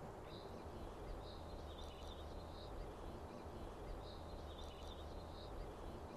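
Faint ambience of scattered soft, high bird chirps over a low steady hum.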